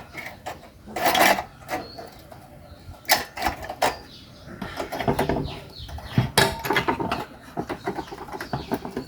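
Scattered metal clicks, knocks and scrapes of hand tools working on the underside of a rice cooker as its thermostat magnet is taken off.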